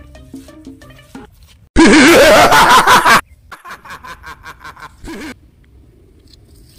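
A loud laughing sound effect cuts in suddenly about two seconds in and lasts about a second and a half, its pitch wavering up and down; fainter pulsing sounds follow it.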